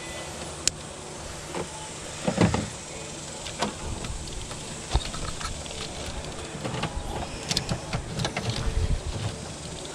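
Scattered clicks, knocks and short rattles of hands working with parts and tools, busiest about two seconds in and again in the second half, over a steady faint hum.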